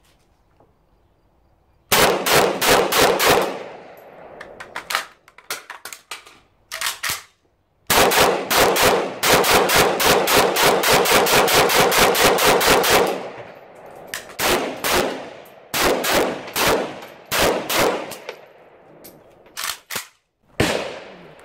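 AK-pattern rifle fired in rapid strings, each shot trailing a short echo. A quick burst of about six shots comes about two seconds in, then scattered single shots, then a long fast string of about five shots a second in the middle, then slower, spaced shots toward the end.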